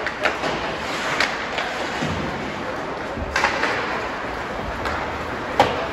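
Ice hockey play: a few sharp knocks of sticks and puck over steady rink noise, the loudest near the end.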